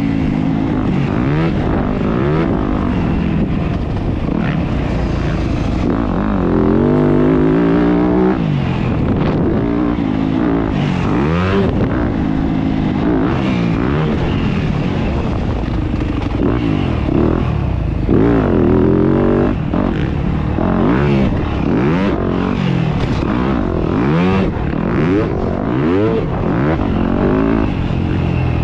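Yamaha YZ250F four-stroke single-cylinder motocross engine revving up and dropping back again and again while racing around the track, its pitch rising and falling every second or two over a rough low rumble.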